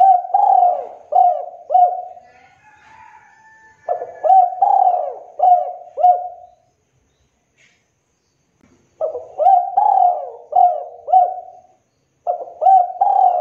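Spotted dove cooing: four phrases of several low coo notes each, with pauses of a second or two between phrases.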